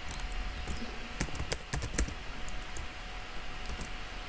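Typing on a computer keyboard: a run of irregular keystroke clicks, most of them in the first two and a half seconds.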